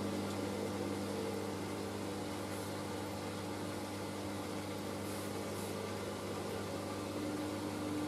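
Hoover SIX AAA160 Whisper 1600 washing machine running with a steady motor hum as it turns the drum at the start of its first intermediate spin, with the load not yet settled enough to spin up.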